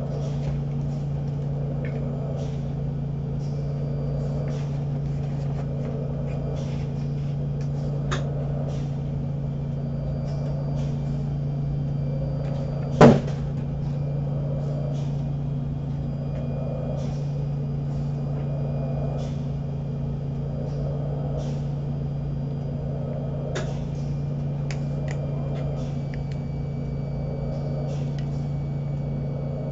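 A machine's steady hum with faint swells about every two seconds and scattered small clicks, broken by one sharp knock about 13 seconds in.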